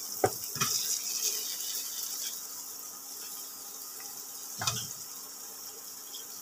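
Mustard oil and fried spices sizzling in a frying pan as cut onion flower stalks and eggplant are tipped in from a bowl. There are a few short knocks, the loudest a little under five seconds in.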